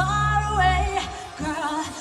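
Live Eurodance music with a held, gliding sung melody. The heavy bass and beat drop out about a second in, leaving the voice and backing.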